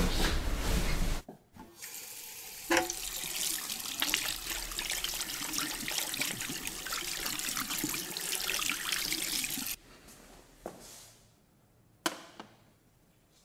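A loud sound cuts off about a second in. Then, after a knock, water runs steadily from a tap into a salon shampoo basin and stops abruptly about ten seconds in. A couple of sharp clicks follow.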